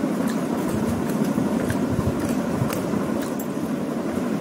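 A steady low humming rumble with a few faint light clicks, like hands and a spoon at a steel plate and bowl while eating.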